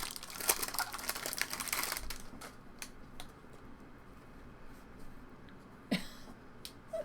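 Foil trading-card pack wrapper crinkling for about two seconds, then light clicks and taps of cardboard cards being handled.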